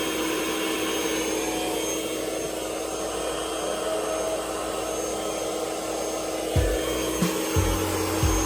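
Electric air pump running steadily, a whirring blower with a constant hum, as it inflates an air mattress. About two-thirds of the way through, a series of low thumps starts under it.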